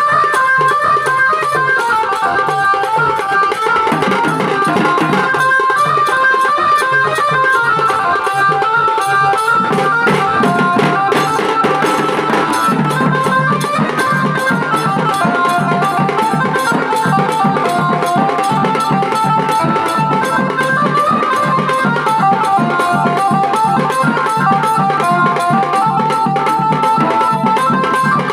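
Bengali wedding tasa-dhol band playing fast, dense drumming on a barrel dhol, large stick-played drums and a tasa, with a melody line running over the drums. The low drum beats grow heavier about a third of the way in.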